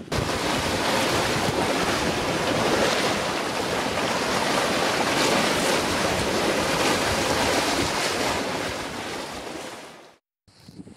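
Water rushing along the hull of a sailing yacht under way, mixed with wind buffeting the microphone. The sound fades out about ten seconds in.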